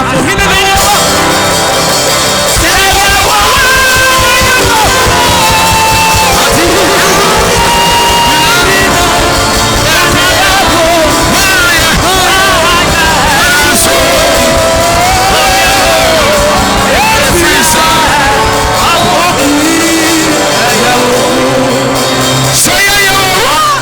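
Loud church worship music with singing over a steady beat.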